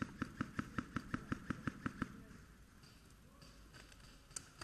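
Airsoft gun firing a rapid string of shots, about six a second, that stops about two seconds in; one more sharp shot or hit sounds near the end.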